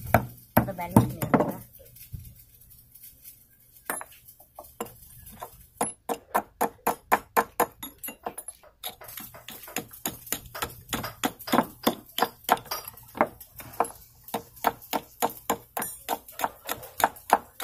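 A hand hammer strikes a nut being driven into the head of an oil expeller machine: a few sharp metal blows. After a pause comes a long, even run of quick sharp clicks, about four a second.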